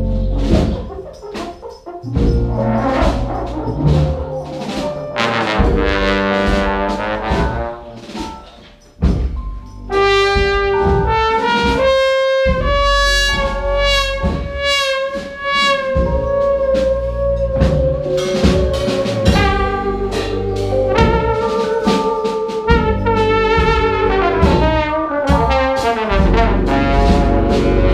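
A live brass ensemble of trumpets, saxophones and tubas with a drum kit plays a piece. About ten seconds in, after a brief drop, the full band comes in with long held brass chords over steady drum strokes.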